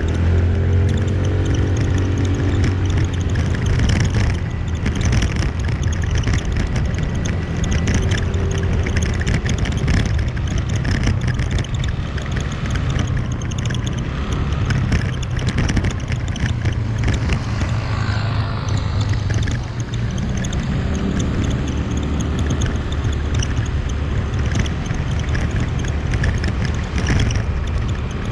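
Motorbike engine running while riding: a steady low drone mixed with rushing wind and road noise. The engine pitch rises and falls briefly in the first couple of seconds.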